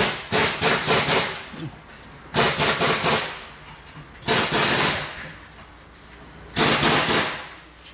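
Pneumatic impact wrench hammering in four short bursts of rapid blows, with brief pauses between them.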